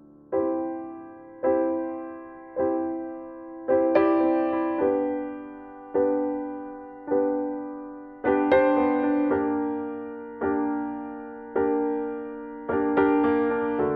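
Slow, soft piano music: a chord struck about once a second and left to ring and fade, with a few fuller chords around four, eight and thirteen seconds in.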